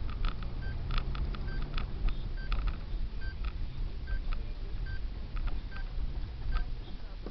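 Low rumble of a car's engine and tyres heard inside the cabin while driving slowly. Over it, a short electronic beep repeats about every 0.8 seconds, with scattered clicks and rattles.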